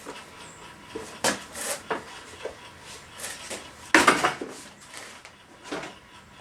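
Metal parts and tools being handled and set down on a workbench: scattered clinks and clanks, the loudest clank about four seconds in.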